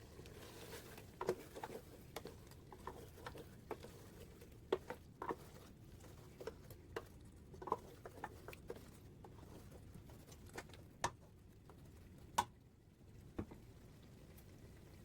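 Irregular sharp clicks and taps, a couple of dozen scattered unevenly, some louder than others, over a faint steady background.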